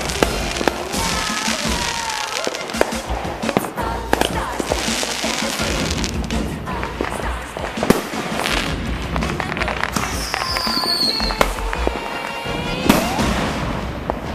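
Aerial fireworks bursting: a steady run of sharp bangs and crackles, with a falling whistle about ten seconds in.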